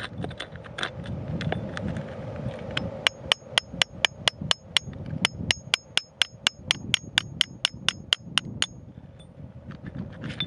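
Dirt and gravel scraping around a quartz crystal, then a fast run of ringing metal taps from a hammer on a steel chisel, about four or five a second, for roughly five seconds, chipping the rock free; the scraping comes back near the end.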